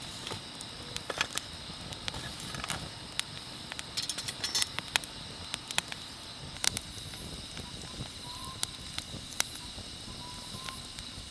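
Wood fire crackling in a fire pit, with irregular sharp pops, some loud, over a steady chorus of night insects.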